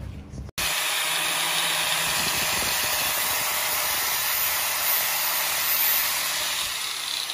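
Power grinder grinding the edge of a steel Bowie knife blank, throwing sparks: a steady, even grinding noise that starts abruptly about half a second in.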